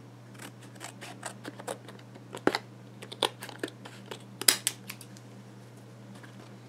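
Scissors snipping at the card-and-plastic blister pack of an SD memory card: a run of sharp clicks and snips, loudest about two and a half and four and a half seconds in.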